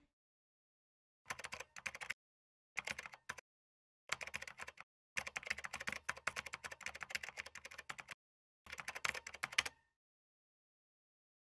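Typing on a computer keyboard: rapid key clicks in five bursts separated by short silent pauses, the longest burst near the middle. The clicking stops a little before the end.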